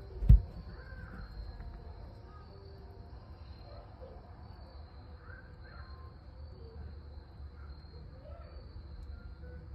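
A single sharp thump about a third of a second in, followed by a low steady rumble with a few faint, short, wavering calls scattered through it.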